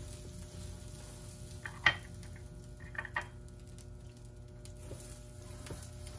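A few light clicks and knocks of kitchen handling over a steady low hum, the sharpest knock about two seconds in.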